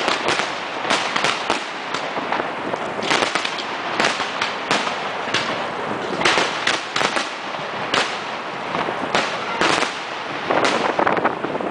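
Aerial firework shells bursting overhead: many sharp bangs in quick, irregular succession over a continuous haze of noise.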